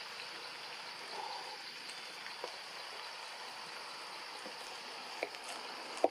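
Steady outdoor forest background noise with a faint high-pitched steady drone over it, broken by a few soft clicks, the sharpest just before the end.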